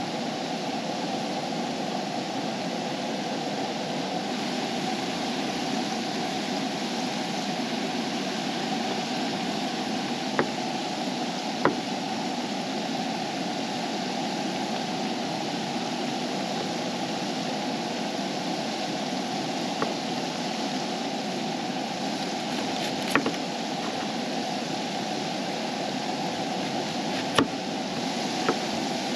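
Potato fries sizzling steadily in hot oil in a frying pan, with a handful of sharp knife knocks on a wooden cutting board as vegetables are chopped.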